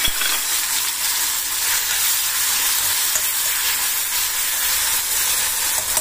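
Pounded, pre-roasted masala sizzling in hot mustard oil in an iron kadhai while a spoon stirs it, a steady frying hiss.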